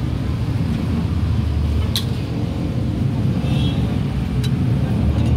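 Steady low rumble, with a sharp clink about two seconds in and a fainter one a couple of seconds later.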